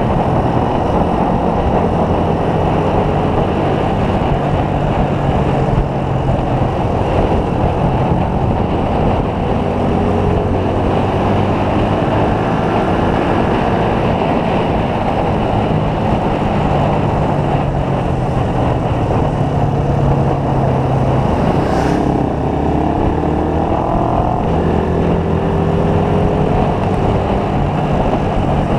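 Motorcycle engine running steadily at road speed under a loud, steady rush of noise. A short click about 22 seconds in is followed by the engine pitch rising several times as it accelerates.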